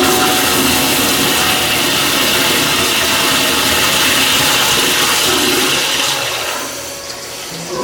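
Toilet flushing: a loud, steady rush of water that dies away about six and a half seconds in.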